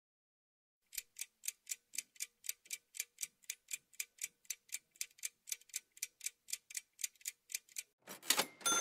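Countdown-timer sound effect: a clock ticking evenly about four times a second. Near the end it breaks into a quick flurry of clicks and then a bell-like ding that rings on.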